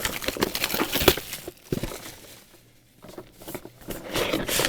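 Plastic wrapping crinkling and the cardboard of a trading-card Elite Trainer Box being handled as it is opened, with a couple of sharp knocks in the first two seconds and a quieter lull midway.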